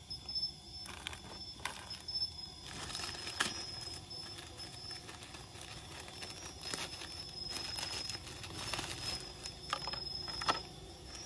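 An insect's steady high-pitched chirring, broken off now and then, under scattered rustles, crunches and sharp knocks of handwork; the loudest knock comes near the end.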